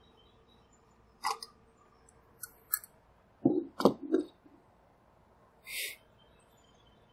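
Scattered light clicks and knocks of telescope equatorial-mount parts being handled and set down on a plastic table. The loudest is a quick cluster of knocks about three and a half seconds in, and a brief hiss comes near the end.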